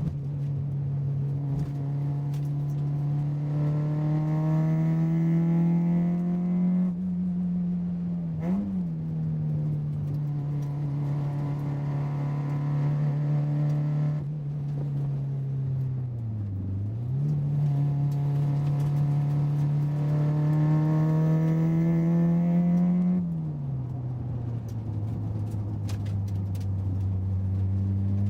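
A car on the move, its engine and drivetrain giving a steady low hum with a higher whine above it. Twice the pitch slowly climbs and then drops back, once near the middle and once near the end, with brief pitch jumps in between. This is the abnormal noise from the car's right-hand corner.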